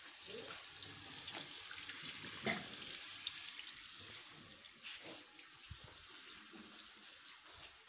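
Water running from a tap, a steady hiss that eases off slightly in the second half, with a few faint clicks.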